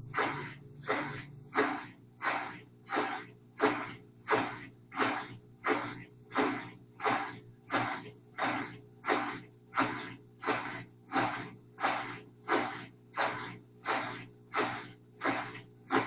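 A machine making a regular swishing noise, about three swishes every two seconds, over a steady low hum.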